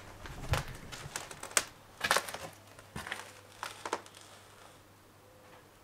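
Footsteps crunching and crackling on dry debris and old boards on a barn floor: a quick run of sharp crunches over the first four seconds, then it goes quieter.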